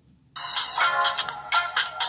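Samsung Solstice (SGH-A887) phone playing a ringtone: after a brief silence, a loud electronic tune with a quick run of sharp, rhythmic notes starts about a third of a second in.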